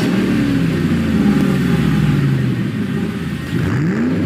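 A car engine running loudly, its pitch settling after it fires up and then sweeping up and back down in a quick rev near the end.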